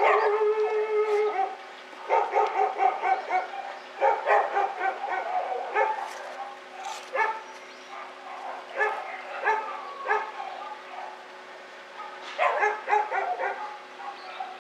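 Several dogs barking and yelping in repeated bursts, with a held cry at the start and short lulls between bursts.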